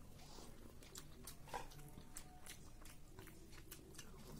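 Faint chewing of a mouthful of hand-mixed rice, with scattered soft wet mouth clicks.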